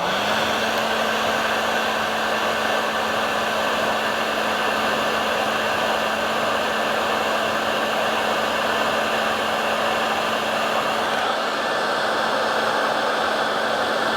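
Heat gun switched on and blowing steadily, shrinking heat-shrink tubing over the cable ends; its motor comes up to speed just at the start, then holds an even hum under the rush of air.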